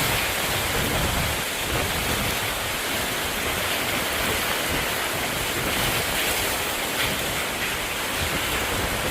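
Heavy rushing water in a flood, a steady loud noise with a low rumble underneath.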